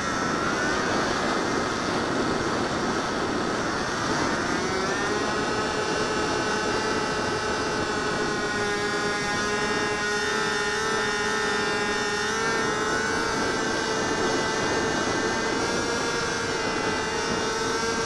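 HobbyZone Delta Ray RC plane's electric motor and propeller whining in flight, heard from the camera mounted on the airframe, over a rush of wind. The pitch sags at the start, climbs back about four seconds in, then holds steady.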